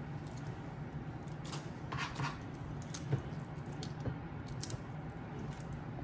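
Boiled crayfish being peeled by hand: small cracks and wet squishes as shells and heads are pulled off, a few sharper clicks among them, over a steady low hum.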